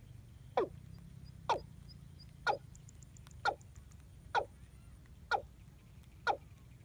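A bird calling: a short, sharp note that falls steeply in pitch, repeated evenly about once a second, seven times.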